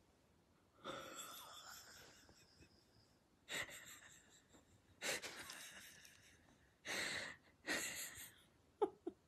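Faint breathy huffs or wheezes, five of them spread over about eight seconds, each starting sharply and fading out, followed near the end by a few short squeaky sounds.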